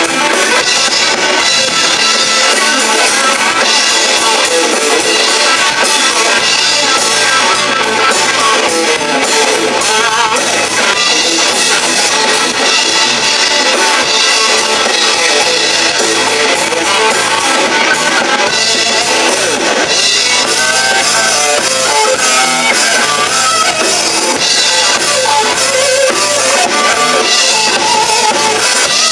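Live rock band playing a loud, continuous song: electric guitar, electric bass guitar and drum kit.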